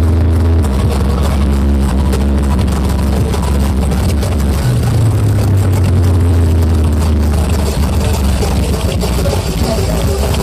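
Huge outdoor sound-horeg systems blasting bass-heavy music at very high volume, with deep sustained bass notes that step up in pitch about halfway through. The sound is dense and overdriven, with several systems sounding at once.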